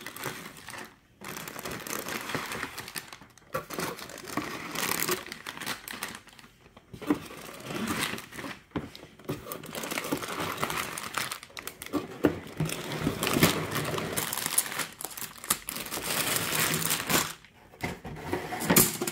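Clear plastic bags of LEGO bricks crinkling in bursts as they are taken out of the box and set down, with short pauses between.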